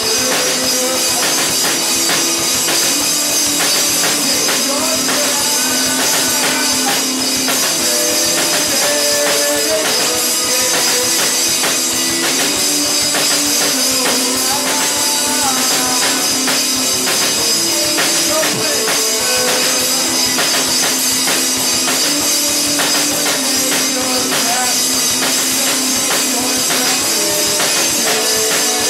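A rock band playing a song live, with a steady bright wash of high percussion over held melodic guitar notes that change every second or so.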